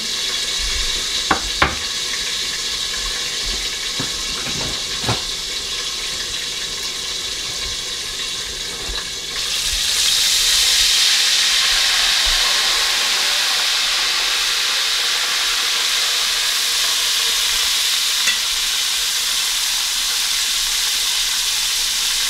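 Buttermilk-coated chicken deep-frying in a pot of hot oil: a steady sizzle, with a few sharp clicks in the first five seconds. About nine seconds in the sizzle turns louder and brighter as the cover comes off the pot.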